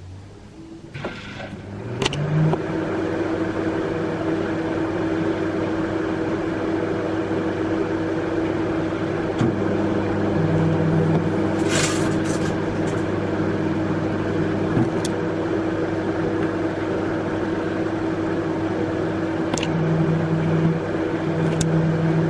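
Microwave oven running on low power, with a steady hum that starts with a click about two seconds in. A few sharp snaps of the steel wool arcing inside cut through the hum, with a cluster of them about halfway through.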